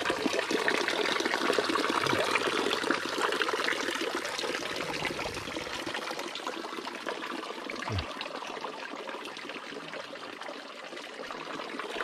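Water babbling and trickling from a small stone garden fountain, a steady pouring splash that eases off a little in the second half.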